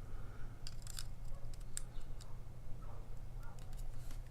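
Faint small metallic clicks and light scraping from a padlock being worked apart by hand, with a steady low hum underneath.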